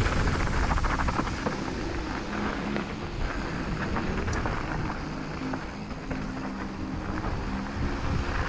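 Mountain bike riding down a gravel trail: wind rushing over the camera microphone, with low rumble and quick rattling clicks from the tyres and bike on the rough surface.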